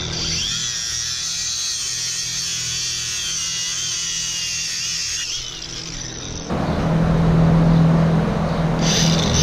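Handheld grinder grinding the heads off the small screws that hold down cow-stall mats: a steady high whine, which turns louder and rougher about six and a half seconds in.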